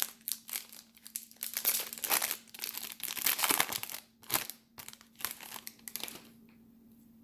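Plastic foil wrapper of a trading-card pack being torn open and crinkled by hand, in a run of irregular rustles that stop about six seconds in.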